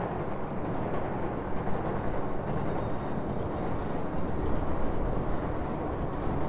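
Steady low rumble and wash of noise under a river railway bridge, with river water lapping around the concrete piers.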